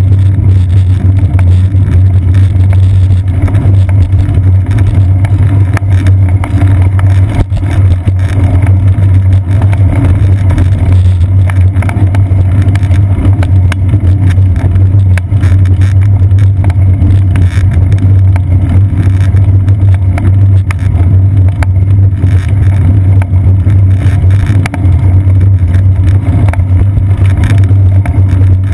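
Loud, steady low rumble of road vibration and wind picked up by a bicycle's seat-post-mounted action camera in its waterproof housing while riding on pavement, with frequent small knocks from bumps in the path.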